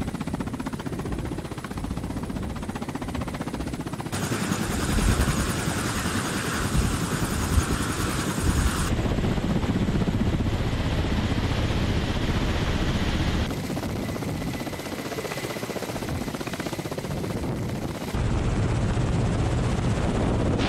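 Ka-52 attack helicopter's coaxial rotors and turbine engines running steadily, on the ground and in low flight. The sound changes abruptly every four or five seconds where separate shots are joined.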